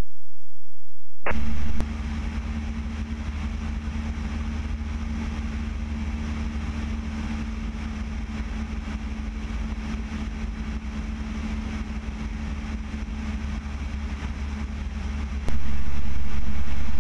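Steady drone of a Piper PA-28-180 Cherokee's four-cylinder Lycoming engine and propeller in cruise flight, with wind rush, picked up by a camera mounted outside on the tail. It starts abruptly about a second in and cuts off a second and a half before the end.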